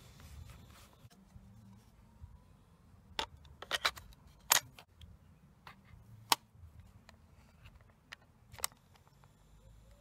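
Sharp plastic clicks and clacks of a Sony TCS-300 cassette recorder's cassette door and a cassette being fitted in: a cluster of clicks a few seconds in, a loud single click a little later and a last click near the end as the door is snapped shut.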